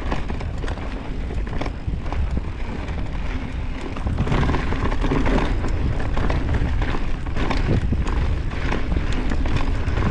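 Mountain bike descending a wet dirt trail: a steady low rumble of wind and tyre noise with frequent clicks and rattles from the bike, getting louder about four seconds in.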